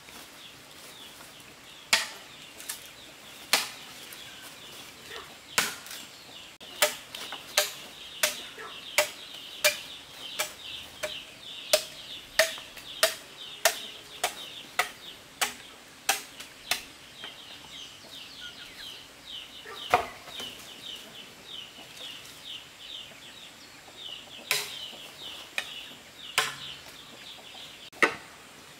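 Sharp knocks of a hand tool striking, irregular and sometimes coming one to two a second, over a continuous high-pitched chirring in the background.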